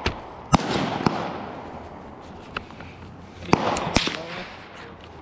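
.22LR AR-style rifle firing single shots: about six sharp, unevenly spaced cracks, the loudest about half a second, three and a half and four seconds in, each trailed by a short echo.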